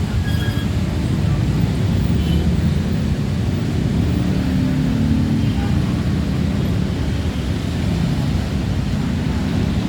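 Road traffic with heavy vehicles: a steady low rumble of engines.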